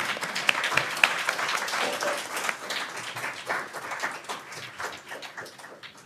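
Audience applauding, the clapping dying away near the end.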